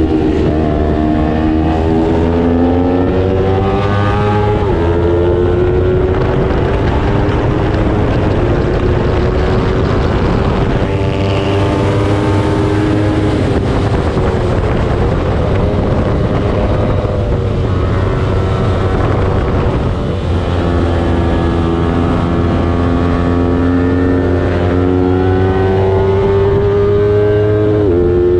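Small-displacement road-racing motorcycle engine at high revs: the pitch climbs and drops sharply at upshifts, and falls away for a stretch in the middle as it slows, over a steady low rumble.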